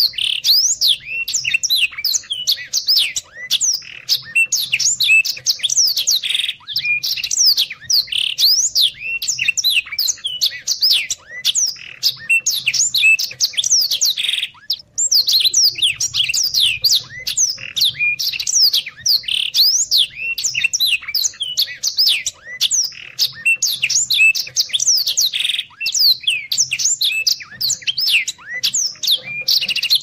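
Black-throated canary (blackthroat) singing a fast, dense, nonstop stream of high twittering, sweeping notes, with one brief pause about halfway through.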